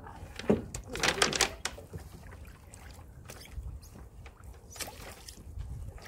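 Small rowboat being backed slowly with oars: a few knocks and water splashes, a cluster of them about a second in, over a low steady rumble.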